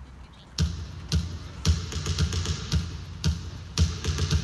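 Hip hop dance track starting about half a second in over outdoor PA loudspeakers, with a heavy kick drum beat about twice a second.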